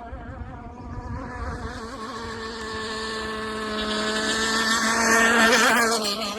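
RC hydroplane's two-stroke gas engine buzzing at a steady high speed, growing louder as the boat runs closer, loudest about five seconds in, then easing slightly, with a rush of water spray and wind.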